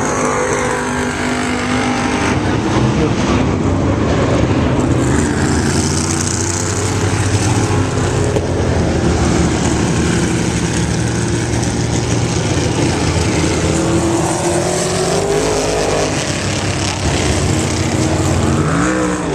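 Several vintage open-wheel race car engines running hard on the track at once, their pitch rising and falling as cars accelerate and pass by.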